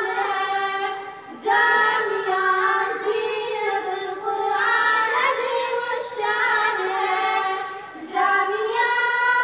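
A child's voice singing unaccompanied in long, held melodic phrases, with two short pauses between phrases, about a second and a half in and near eight seconds.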